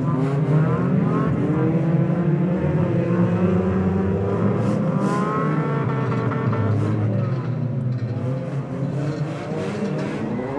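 Several banger racing cars' engines revving and running together around the track, pitch rising and falling as they accelerate and lift, with a few short sharp knocks in the middle.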